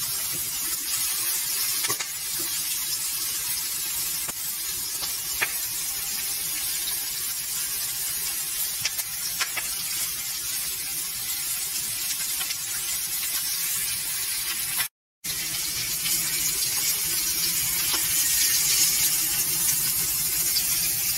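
Atlantic herring frying in oil in a pan: a steady sizzle, with a few light clicks as a fork touches the pan. The sound cuts out for a moment about fifteen seconds in.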